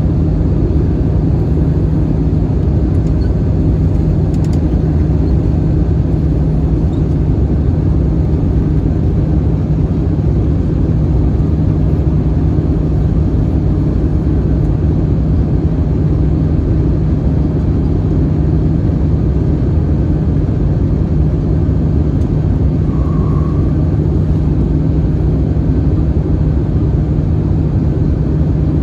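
Steady cabin drone of an Airbus A321-211 in flight, with its CFM56 engines and airflow making a constant loud rumble and a low, even hum that does not change.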